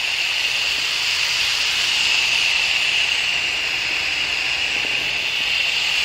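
Steady hiss of foaming coil cleaner being sprayed onto an air-conditioner condenser coil, pushing the dirt out through the fins.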